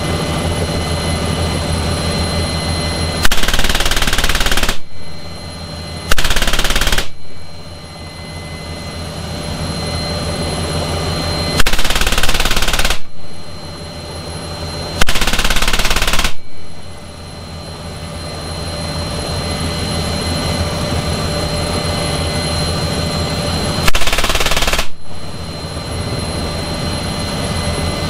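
M3M 12.7 mm (.50 calibre) heavy machine gun firing from an NH90 helicopter's cabin door in five short bursts of about one to one and a half seconds each. Between the bursts, the helicopter's turbines and rotor run steadily with a constant high whine.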